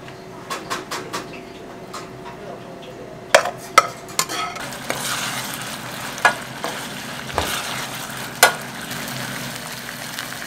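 A wooden spatula stirring a spicy red tteokbokki sauce in a nonstick frying pan, with sharp knocks of the spatula against the pan and a bubbling sizzle that builds after about five seconds.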